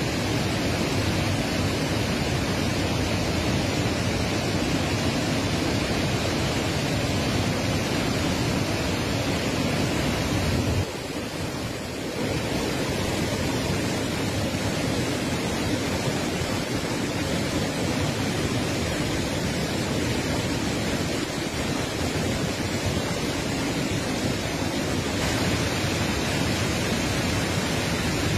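Augrabies Falls on the flooded Orange River: a massive volume of water pouring over the falls into the gorge, a steady, dense rushing noise. It dips briefly about eleven seconds in, then carries on as before.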